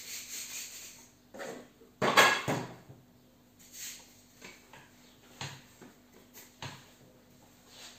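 Wooden rolling pin bumping and rolling over dough on a wooden pastry board: a few scattered knocks and rubs, the loudest about two seconds in.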